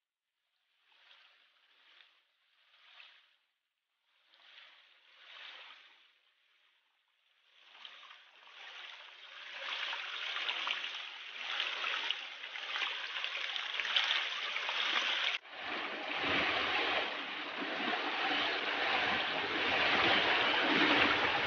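Shallow stream water running and splashing over rocks, faint at first and growing steadily louder from about eight seconds in, with a brief break about two-thirds of the way through. A few faint soft puffs come in the first few seconds.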